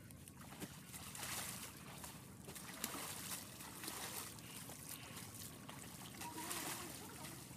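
Shallow river water splashing and trickling as a cow is washed by hand, water scooped and thrown over its head and body in irregular splashes.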